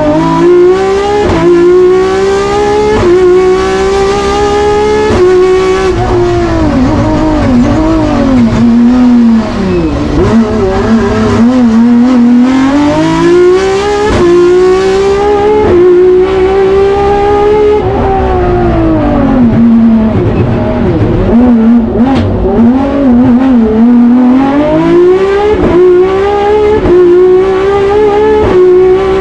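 De-stroked 3.3-litre BMW S38 straight-six in a Ford Escort Mk2 race car, heard from inside the cabin, revving hard to high rpm through quick upshifts, each shift a sudden drop in pitch. Twice the revs fall away under braking with quick throttle blips on the downshifts before the engine climbs through the gears again.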